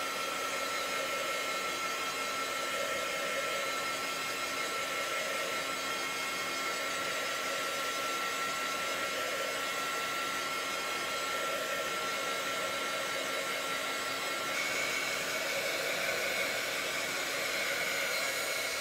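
Handheld craft heat tool blowing steadily to dry wet watercolour paint on paper: a constant rush of air with a thin whine that steps up in pitch about three-quarters of the way through.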